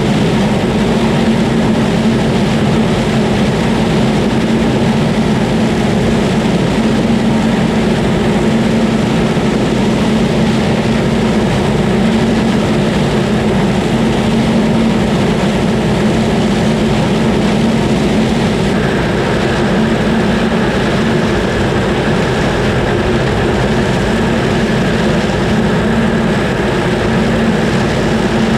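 Large farm diesel engine running steadily, with a higher steady whine joining about two-thirds of the way through.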